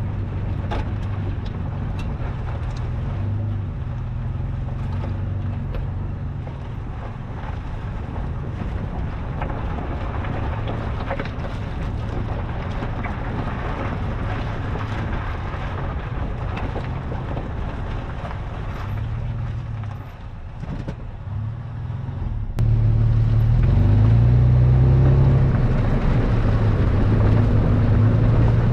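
Toyota FJ Cruiser's 4.0-litre V6 running at low speed over a rough off-road trail, with scattered knocks and rattles. About three-quarters of the way in the sound cuts to a louder engine note that rises and falls.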